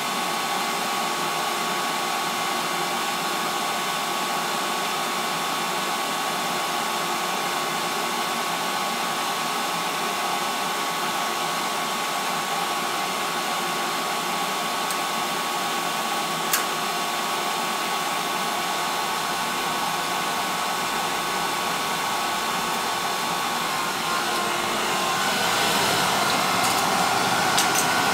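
Carlin gas conversion burner starting up: its blower fan running steadily with a faint whine. About 25 seconds in, the whine stops and the sound grows a little louder, with a few sharp clicks near the end.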